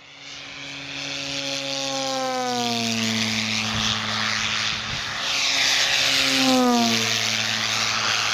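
Electric-powered giant-scale RC P-51D Mustang's 24×8 two-blade propeller making fast flybys, its pitch falling twice as it passes. No engine and no sound generator: the noise is the propeller alone, turned by a brushless electric motor.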